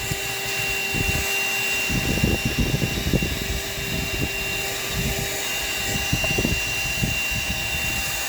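Snow Joe Auto Joe handheld car vacuum running steadily with a thin high motor whine and a rushing hiss of air, with irregular low thumps throughout.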